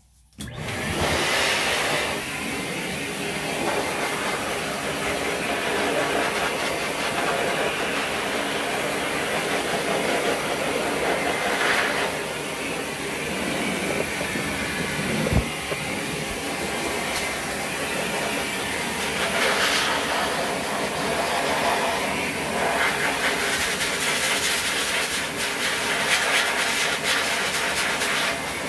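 Pet blow dryer switched on just after the start and blowing steadily, drying a dog's wet coat.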